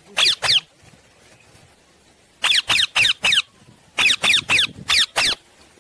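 Ring-necked parakeet giving short, sharp screeching calls, each falling in pitch, in three quick bursts: two, then four, then six.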